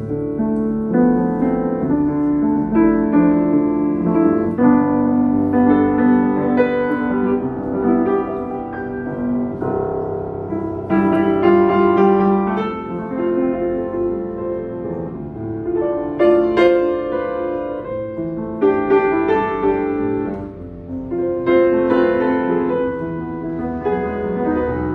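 Yamaha YUA upright piano being played, a continuous flow of chords and melody notes struck and left to ring. It has been rebuilt with new German ABEL hammer heads and a complete new set of bass strings.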